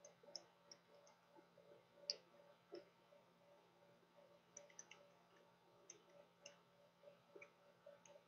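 Near silence with faint, scattered clicks and taps, the loudest about two seconds in, from a stylus drawing on a tablet, over a faint steady hum.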